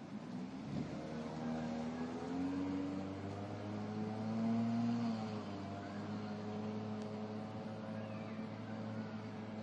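A motor vehicle's engine passing close by, coming up about half a second in, loudest around the middle and then running on steadily, over a continuous background of traffic noise.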